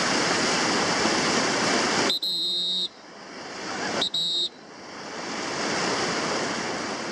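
Whitewater rapids rushing steadily. A little over two seconds in, a high steady tone sounds for under a second, and it comes again briefly about four seconds in. Each time the water noise drops away after it and then swells back up.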